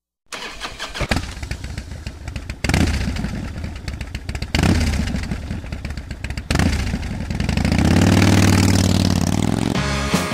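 Motorcycle engine starting and revving, in pieces that change abruptly every two seconds or so. Near the end it rises in one long, smooth rev and eases back down.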